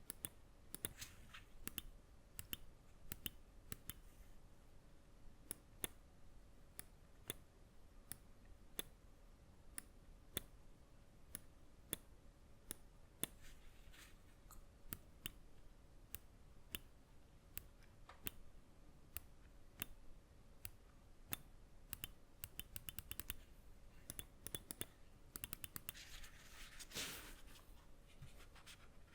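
Epomaker Carbon X gaming mouse buttons clicking one at a time, each a short sharp click with a gap of about half a second to a second between them. Near the end comes a quick run of rapid clicks, followed by a brief scraping rush.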